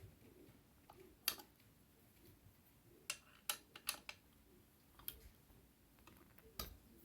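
Allen wrench tightening the handle bolt of a metal button press: about six sharp metal clicks and taps, scattered and irregular.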